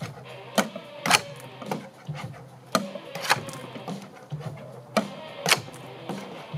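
Sharp knocks in a loose repeating pattern, often two strikes about half a second apart, over a low steady hum.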